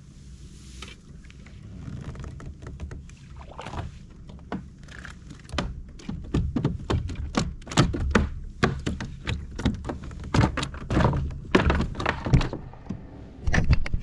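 Irregular knocks and thuds on a fishing kayak, coming thick and fast from about six seconds in and dying away near the end, over a low rumble.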